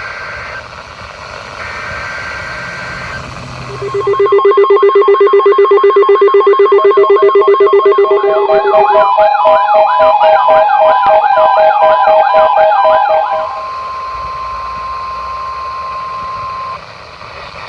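NOAA Weather Radio weekly test alert: two short buzzy SAME data bursts, then the steady 1050 Hz warning alarm tone. About four seconds in, several weather alert radios set off by the test join in with their own alarms, a fast warbling siren and rapid beeping. The radios' alarms cut off about 13 seconds in, and the steady tone carries on alone for a few more seconds.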